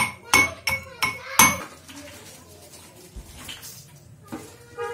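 A pestle pounding spices and onion in a metal mortar: five ringing metallic strikes about three a second, stopping after about a second and a half.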